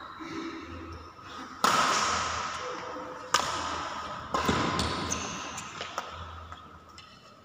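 Badminton rackets striking a shuttlecock in a rally, three sharp loud hits spaced a second or more apart, each ringing on in the hall's echo, followed by a few lighter taps.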